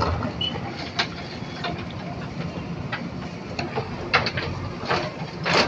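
JCB 3DX backhoe loader's diesel engine running steadily, with scattered sharp knocks and clinks at irregular intervals.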